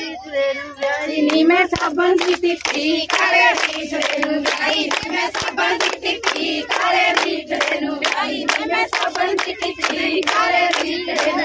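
A group of women singing Punjabi boliyan together to steady, rhythmic hand clapping, the clapping beat for a giddha dance.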